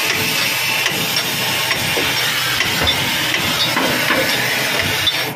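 Steady, loud hiss over a low mechanical hum, with a few faint clicks, in a truck repair workshop.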